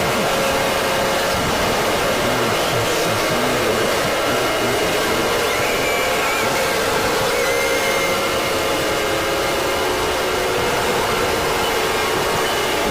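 Loud, steady static-like noise with faint wavering tones beneath it, the sound track of a mock emergency alert broadcast.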